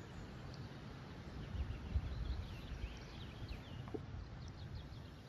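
Faint outdoor ambience: a low wind rumble with a few faint, short bird chirps around the middle.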